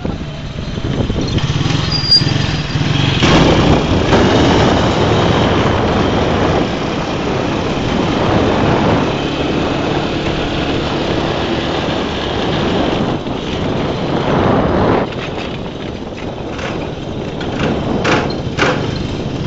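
Motorcycle engine of a motorcycle-and-sidecar tricycle running on the move, with road noise. Louder from about two seconds in, easing off for a while after fifteen seconds.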